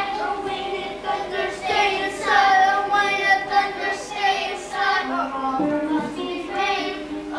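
Children's voices singing a song together, with held notes.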